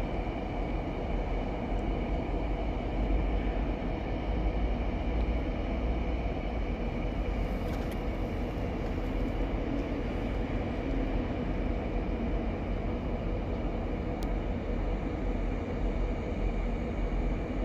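Freight train of covered hopper cars rolling slowly past: a steady rumble of wheels on rail with a faint high whine.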